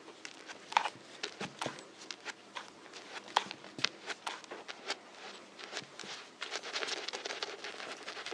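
Foley of a barber lathering a man's face with a shaving brush: irregular soft taps, clicks and scuffs, with a denser rustling stretch about six and a half seconds in.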